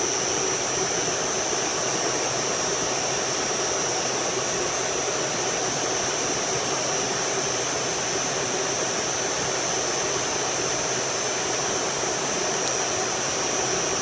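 Steady rushing of air-conditioning fans running, with a constant high-pitched whine on top.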